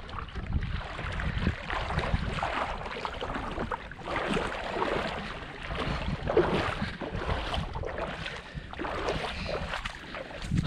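Wind buffeting the microphone, over seawater lapping and splashing irregularly against the shore.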